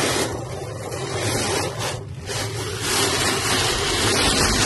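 Torrential rain pelting a moving car's windshield and roof, with the windshield wipers on their fastest setting rubbing across the glass over a steady road and engine rumble. The hiss eases briefly about two seconds in, then grows louder again.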